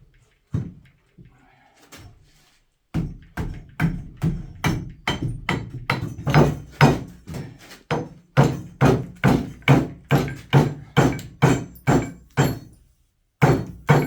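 Repeated hammer blows on a stuck excavator part, about two to three a second, in two long runs with a short pause between them, after a couple of single knocks. The part is heat-swollen and won't come off, so it is being knocked loose.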